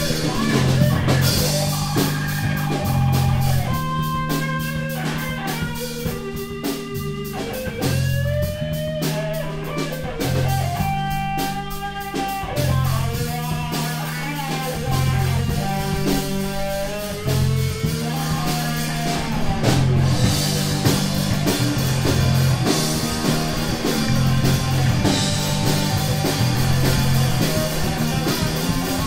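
Live rock trio playing an instrumental passage: electric guitar, bass guitar and drum kit, with a steady repeating bass line. In the middle the lead line slides and bends between notes, and cymbals crash near the start and near the end.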